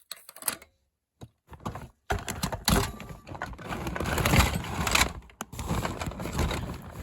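Plastic fire alarm devices being handled and moved about: a few light clicks, then from about two seconds in a dense run of clattering and knocking.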